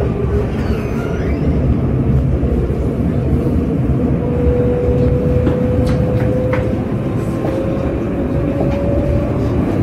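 An Alstom Citadis tram running, heard from inside the passenger car. There is a steady rumble from the wheels on the rails, and a traction-motor whine rises slowly in pitch as the tram gathers speed.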